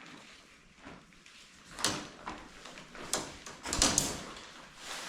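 A camping tent being taken down and packed: its fabric and parts handled in a few short, sharp rustling scrapes, about two, three and four seconds in.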